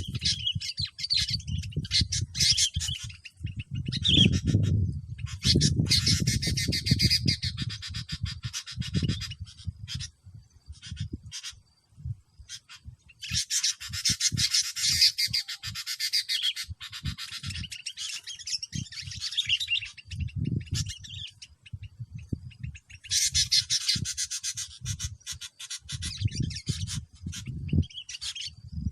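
Bulbuls giving bursts of harsh chattering calls, several seconds at a time with short gaps between, over an uneven low rumbling on the microphone.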